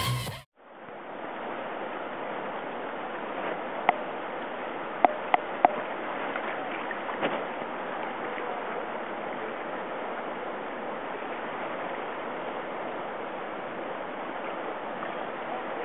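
Music cuts off in the first half second, giving way to the steady rush of whitewater river rapids. A few short, sharp sounds stand out between about four and six seconds in.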